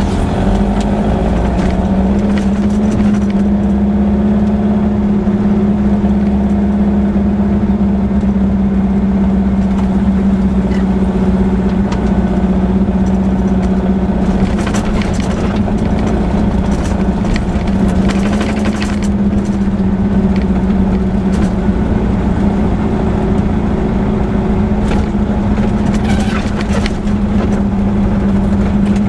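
Air-cooled VW flat-four engine of a Baja Bug running at a fairly steady pitch as it drives slowly over a rough dirt track, heard from inside the cab, with occasional clicks and rattles over the bumps, most around the middle and near the end.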